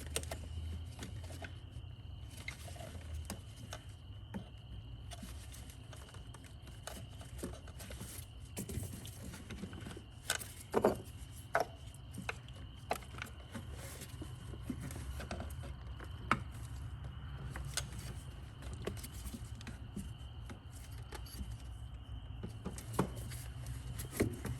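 Scattered clicks and light knocks of engine-bay parts being handled and fitted by hand, over a steady low hum.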